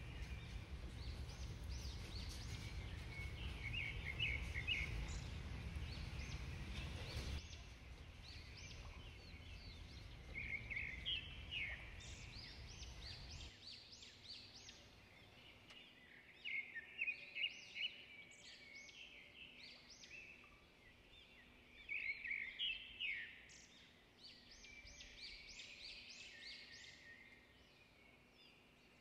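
Birds chirping in short, repeated bursts over faint outdoor ambience. A low rumble under the first seven seconds or so stops abruptly.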